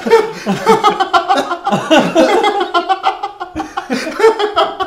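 Men laughing, in short repeated bursts.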